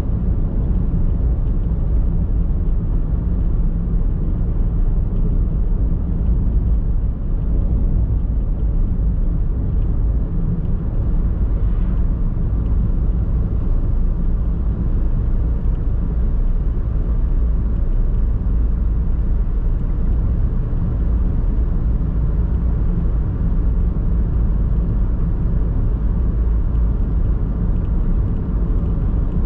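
Steady low rumble of a car driving on a paved road: engine and tyre noise.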